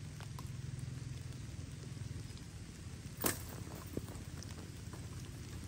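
Steady heavy rain falling on foliage, with a single sharp click about three seconds in.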